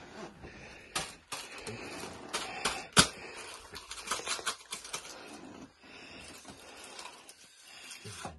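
Irregular clicks and taps of hands moving among small foil-topped cups on a homemade countdown board, with one sharp knock about three seconds in.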